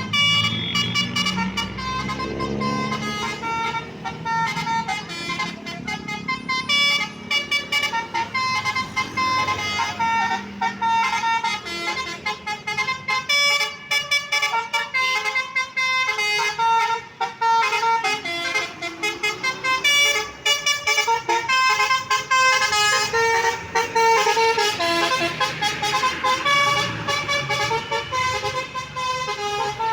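Tour bus's telolet basuri horn playing a quick, flute-like melody of short stepped notes, on and on.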